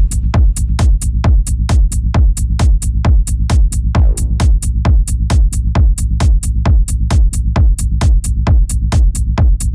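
Techno music from a live session: a steady kick drum pulsing about twice a second under crisp hi-hat ticks. A short falling sweep comes in about four seconds in.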